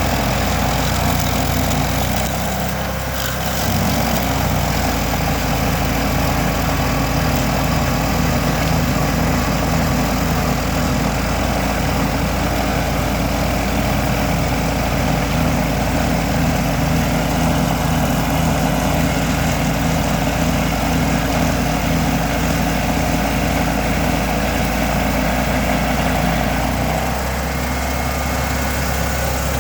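Vermeer SC382 stump grinder's 37 hp engine running steadily while its cutter wheel grinds a dry hickory stump. The sound dips briefly about three seconds in and again near the end.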